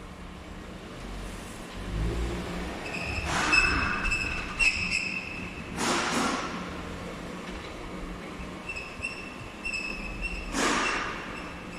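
Skoda Octavia III being driven, with a steady road rumble and a high, piercing brake squeal that comes and goes twice while the car brakes. This is the severe squeal on braking the car was brought in for. A few louder passing swooshes rise over the road rumble.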